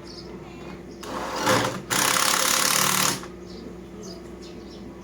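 Jet of a small pressure washer spraying: a short rising hiss, then a steady full-blast spray of just over a second that cuts off, over a steady low machine hum.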